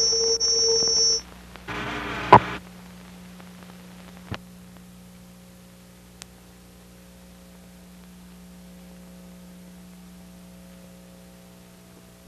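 Low, steady electrical mains hum on an old analogue soundtrack with no programme sound. Before it, a steady high-and-low tone cuts off about a second in, then comes a brief burst of hiss with a sharp pop a little after two seconds, and a small click near four seconds.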